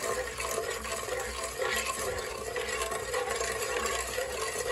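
A slotted metal spoon stirring liquid in a cooking pot, with swishing and small clinks against the pot.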